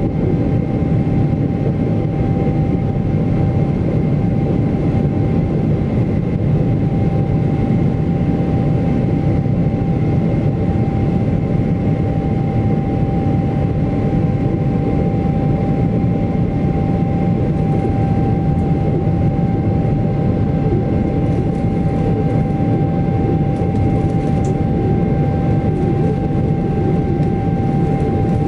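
Boeing 777-300ER's GE90-115B turbofan engines at climb power just after takeoff, heard inside the cabin over the wing: a loud, steady low rumble with a constant whine on top.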